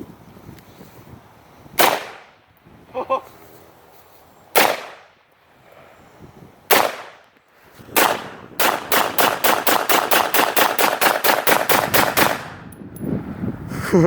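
Daniel Defense rifle firing: four single shots a couple of seconds apart, then a rapid string of about two dozen shots in quick succession over roughly four seconds.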